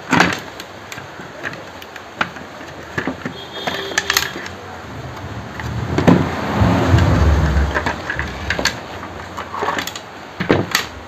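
Mixer grinder motor being worked free of its plastic housing: scattered clicks and knocks of handling, then a couple of seconds of scraping and rumbling about six seconds in as it is pulled out.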